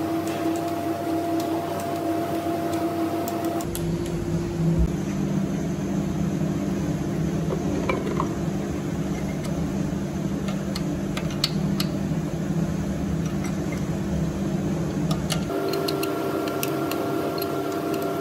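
Light metallic clicks and clinks of steel valve-train parts, such as rocker arms, being handled and fitted into a diesel engine's cylinder head, over a steady workshop hum. The hum changes abruptly about four seconds in and again near the end.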